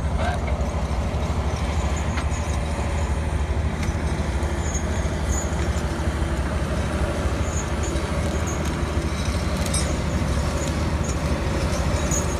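Caterpillar 545 skidder's diesel engine running steadily under load as the machine drags a turn of logs past.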